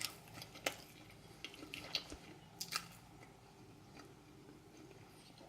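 Faint eating sounds: a handful of soft clicks and smacks of chewing, spread unevenly, with quiet in between.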